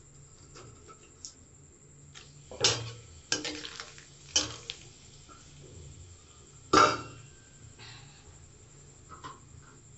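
Long steel spatula clanking and scraping against a metal kadai as bay leaves are stirred in a little oil. A handful of sharp clanks come between about two and a half and seven seconds in, and the last is the loudest.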